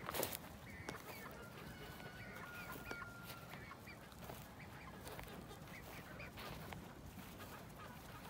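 Rhode Island Red hens giving soft clucks and short calls, with one drawn-out steady call lasting about two seconds near the start. Scattered light clicks and rustles are heard throughout, with a sharp click at the very beginning.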